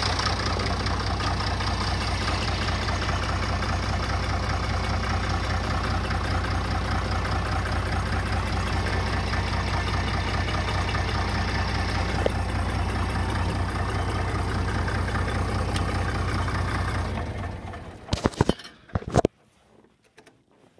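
Case 930CK tractor engine idling steadily, then switched off about 17 seconds in and running down within about a second. A few sharp clicks and knocks follow.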